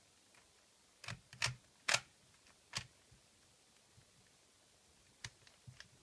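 Plastic clicks of a Rubik's brand 3x3x3 cube as its layers are turned by hand: four sharper clacks between about one and three seconds in, then a few fainter clicks near the end, with quiet gaps between the turns.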